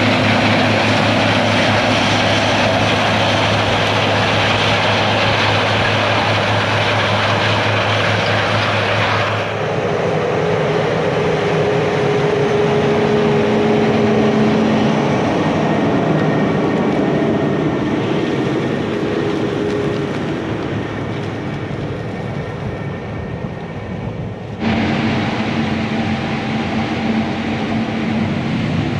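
Diesel farm machinery running steadily during corn harvest: combine and tractor engines at work, a loud even drone with steady tones. The sound changes abruptly about nine seconds in and again near the end.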